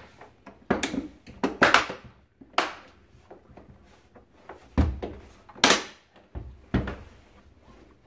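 Plastic housing panels of a Philips Marathon Ultimate FC9924 vacuum cleaner being pressed and snapped together, a string of irregular sharp clicks and knocks.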